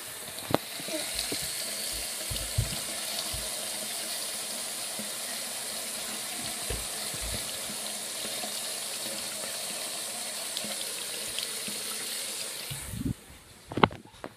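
Water pouring and splashing steadily from a homemade bucket fountain with a tap, running into cups and down into a basin. Near the end the flow cuts off suddenly, leaving a few knocks.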